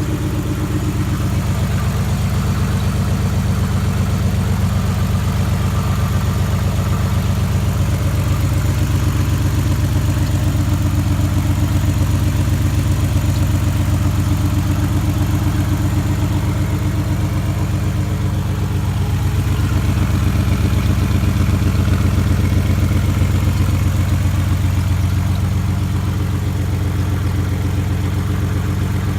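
1991 Nissan Maxima's 3.0-litre V6 engine idling steadily with a fast, even ticking or knocking in its note, which the owner cannot place as injector tick or rod knock. It rises slightly in level for a few seconds past the middle.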